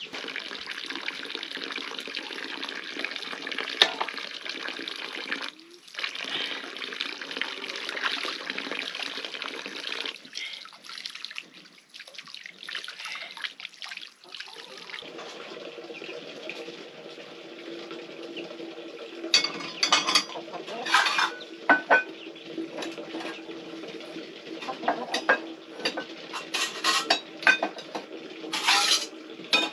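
Water running from a pipe spout into a steel basin as hands are washed in it. Then steel pots and dishes clink and clatter many times over a steady low hum.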